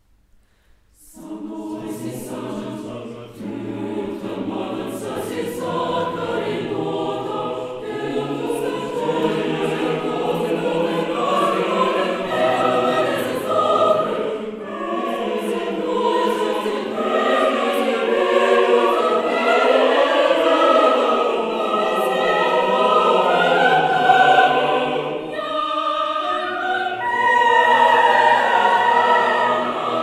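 Mixed choir of women's and men's voices singing a classical choral work, entering together about a second in after a brief silence and building gradually in volume.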